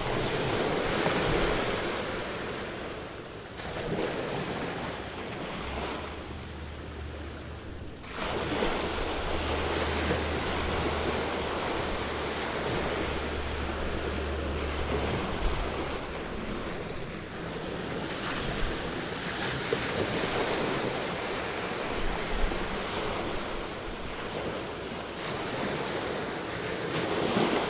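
Ocean surf: waves breaking and washing in, surging and receding every few seconds.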